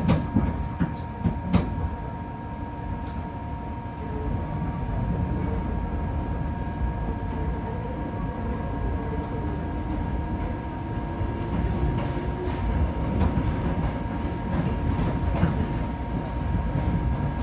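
Hakone Tozan Railway mountain train running on the track: a steady low rumble with a thin steady whine over it, and a few sharp knocks in the first two seconds. The rumble grows louder about four seconds in.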